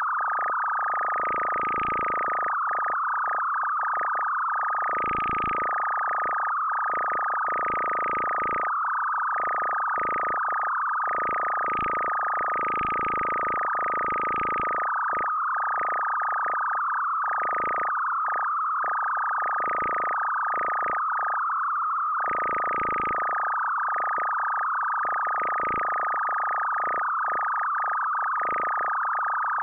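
Electronic album track: a steady high sine-like synthesizer tone with irregular, warbling swells of overtones around it.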